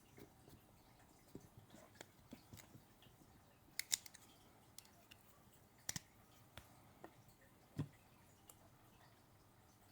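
Faint scattered metal clicks and ticks from a Leatherman Wave multitool being handled and swabbed clean, with its tools and handles shifting. Sharper clicks come about four and six seconds in, and a soft knock near eight seconds.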